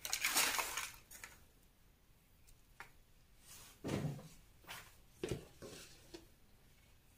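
Hands brushing and rustling seed compost mixed with perlite across a plastic multi-cell seed tray, then a few soft rustles and light knocks as the hands dig into a plastic tub of the compost.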